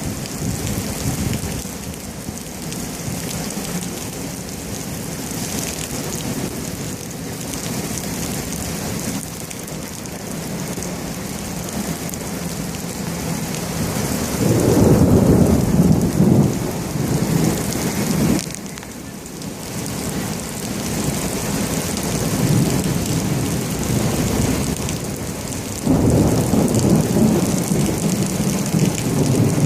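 Heavy rain pouring steadily during a severe thunderstorm, with thunder rumbling loudly about halfway through and again near the end.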